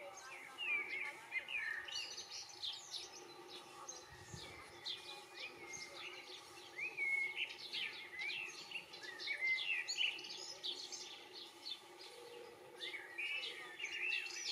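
European goldfinches twittering: a dense run of quick, high chirps and short gliding notes, over a faint steady hum.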